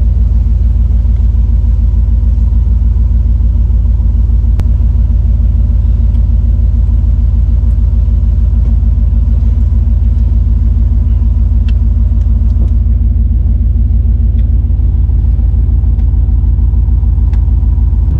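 Turbocharged Chevrolet Silverado pickup's engine idling steadily while warming up, a deep even rumble.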